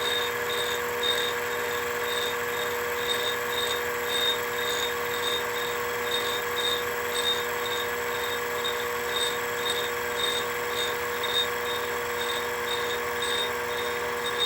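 LMS 3900 HiTorque mini mill running steadily on a finishing pass over acrylic: a constant motor hum with a high tone that pulses evenly about three times a second.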